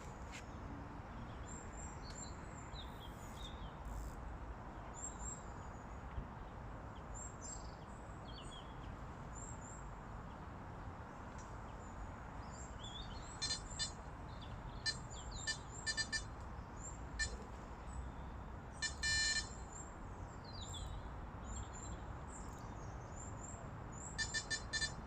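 Small birds chirping and singing over a steady low background hiss. From about halfway in, an electronic carp bite alarm gives short beeps in small groups, with one longer tone and a quick run of beeps near the end, as the line is set and tightened.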